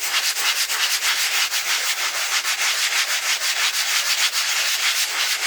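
Two grit-60 foam sanding blocks rubbed abrasive face against abrasive face in fast back-and-forth strokes, giving a steady, rapidly pulsing gritty scratch. This is a wear test meant to strip grain and dent the foam.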